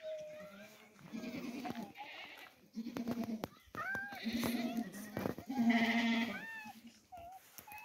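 Goats bleating over and over, a mix of deeper adult bleats and higher, wavering calls that fit the young kids.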